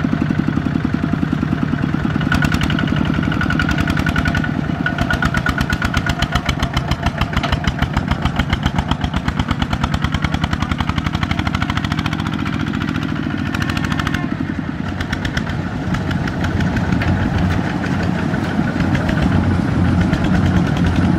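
Kubota RT155 walk-behind tractor's single-cylinder diesel engine running with a fast, even firing beat, pulling a trailer loaded with rice sacks.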